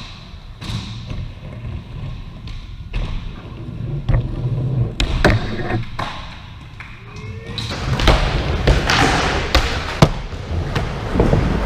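Skateboards rolling on ramps with repeated sharp board slaps and thuds. The rolling grows louder about two-thirds of the way through, and the loudest crack comes near the end.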